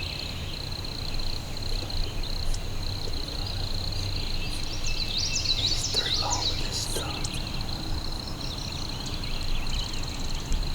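Swampy woodland ambience: a steady high-pitched drone, with a flurry of bird chirps about halfway through, over a low rumble.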